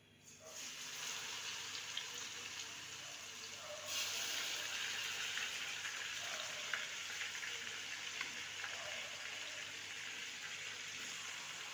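Marinated chicken pieces sizzling as they are dropped into hot butter and oil in a pan. The sizzle starts about half a second in and grows louder about four seconds in, then holds steady.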